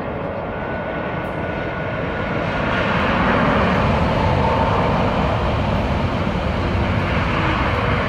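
KTX high-speed train passing: a steady rushing noise that builds over the first three seconds, holds, and begins to fade right at the end.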